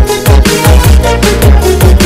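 Electronic music with a steady beat of deep kick drums that drop in pitch on each hit.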